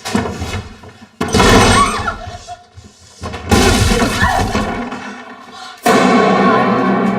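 Horror-film soundtrack of score and sound effects: three sudden loud crashing hits, about a second, three and a half and six seconds in, each fading away after it strikes.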